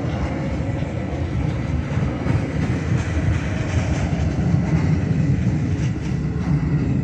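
Alaska Railroad freight train rolling past, a steady low rumble of flatcar wheels on the rails that swells slightly about two-thirds of the way through.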